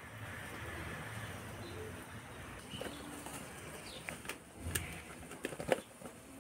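A dove cooing softly, with low rounded calls, over faint outdoor background. In the second half come several sharp clicks and knocks of kitchen items being handled.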